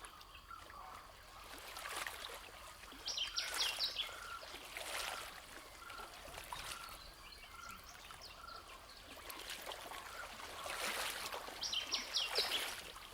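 Birds calling over running water. A short bird note repeats about once or twice a second, and two brief, louder, higher-pitched bird phrases come about three seconds in and near the end.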